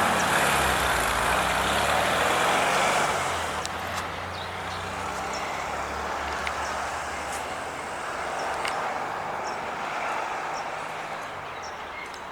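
A motor vehicle passing on the road: a broad rush that is loudest for the first three seconds, then dies down to a low engine rumble.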